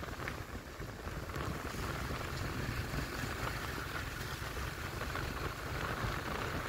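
Steady riding noise from a motor scooter on a wet road: a wavering low rumble of wind on the microphone over the engine and the hiss of tyres on wet asphalt.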